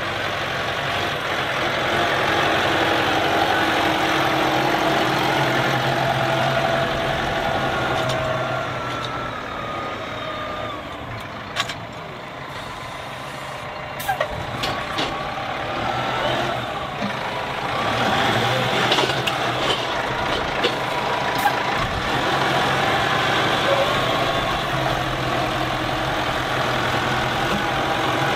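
Massey Ferguson 5712 S tractor's four-cylinder diesel running under way, its note swelling and dipping as it drives and works the front loader. A few sharp knocks come partway through.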